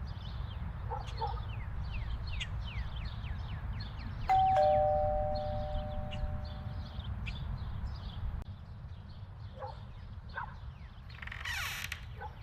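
Electric doorbell chime ringing once, a two-note ding-dong, high then lower, about four seconds in, ringing on for a couple of seconds. Short falling chirps of small birds sound throughout.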